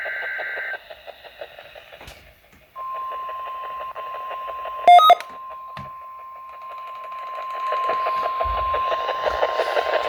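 NOAA Weather Radio heard through a receiver: a SAME digital header burst ends just under a second in. After a short gap the steady single-pitch 1050 Hz warning alarm tone begins about three seconds in and holds, signalling the weekly test alert. A short, loud beep cuts in once about five seconds in.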